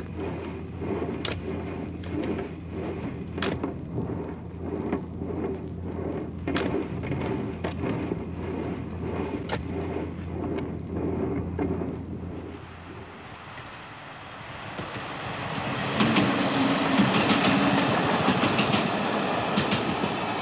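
Engine of an auger boring machine running with a steady low hum, and sharp metallic clanks at irregular intervals as it bores a passage under a road. About two-thirds through it dies down, and a louder, broad rushing rattle builds up and holds.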